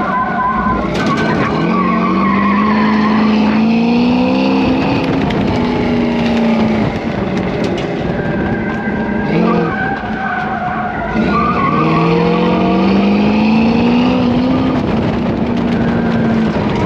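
A pickup truck's engine run hard through an autocross course: the revs climb for about three seconds, drop back, then climb again near the middle, with tires squealing and skidding.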